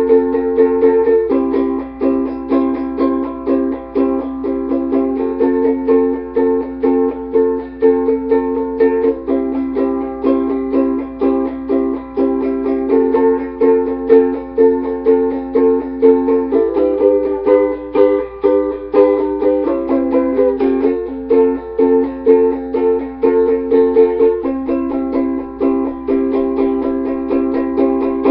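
Ukulele strummed in a steady rhythm, moving through a sequence of chords.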